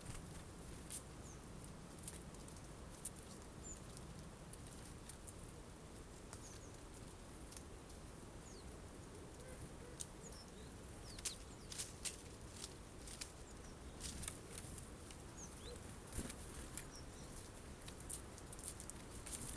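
Tits at a bird feeder: faint scattered clicks and taps of pecking and landing on the seeds, more frequent in the second half, with a few faint, short, high calls.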